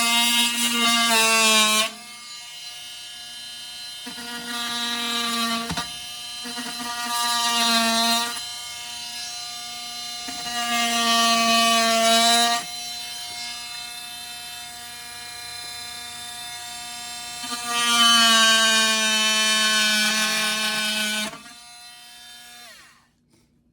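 Makita XMT03 cordless oscillating multi-tool running with a wood blade, cutting a notch in a piece of wood: a steady high buzzing whine that grows louder in four stretches as the blade is worked into the cut. Near the end the tool is switched off and winds down.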